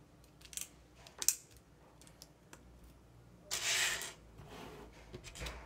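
LEGO plastic pieces being handled and snapped together: a few sharp clicks in the first second and a half, then a short rustling clatter of pieces about three and a half seconds in, and a couple of lighter clicks near the end.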